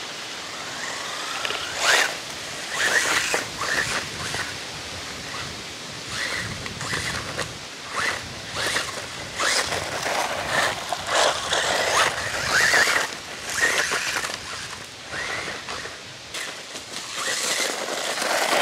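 RLAARLO 1/14 scale brushless 4WD RC buggy being driven hard on a dirt path: its brushless motor whines, rising and falling in pitch with repeated bursts of throttle, over the scrabble of its tyres on loose dirt.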